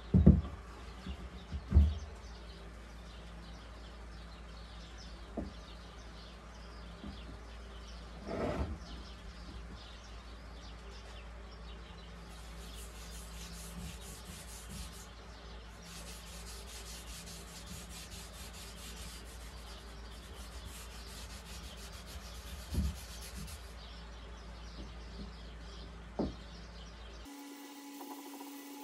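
Wood being rubbed by hand on a hardwood cutting board, with two sharp knocks near the start and a long stretch of fast, even rubbing strokes in the middle. Near the end the sound cuts off suddenly to a steady hum.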